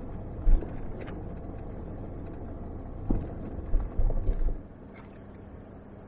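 Engine and road rumble of a vehicle driving, heard inside the cabin, with loud low thumps about half a second in and again from about three to four and a half seconds as it jolts over bumps; the rumble gets quieter near the end.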